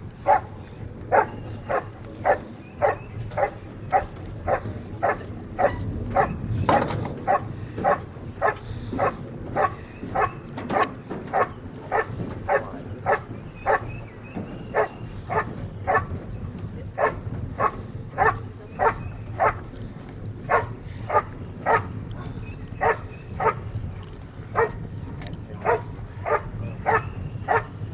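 German Shepherd barking steadily and rhythmically, about one and a half barks a second, at a helper cornered in the hiding blind. This is the hold-and-bark of the protection phase: the dog guards the helper by barking without gripping.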